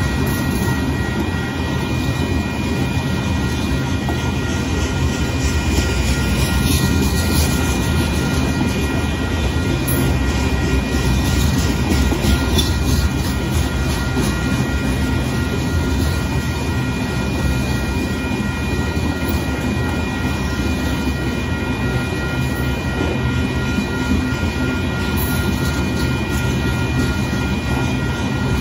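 Union Pacific gravel and hopper cars rolling past a grade crossing: a steady rumble of steel wheels on the rails, with a few thin, steady high-pitched tones over it.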